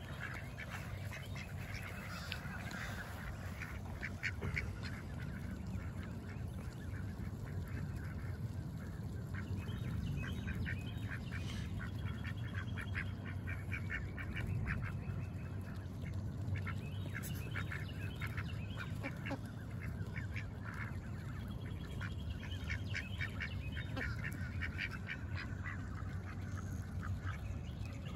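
A flock of domestic ducks quacking and chattering in runs of quick short calls as they feed on scattered grain, with Canada geese honking among them.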